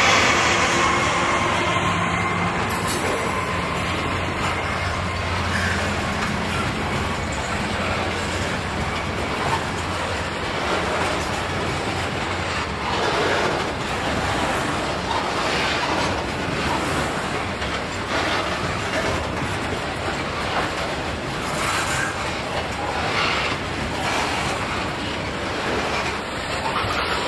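A diesel-hauled coal train passing close by. The locomotive's engine note and a falling whine fade over the first few seconds as it goes past. Then the coal hopper wagons roll by with a steady rumble of wheels on rail and intermittent wheel clicks.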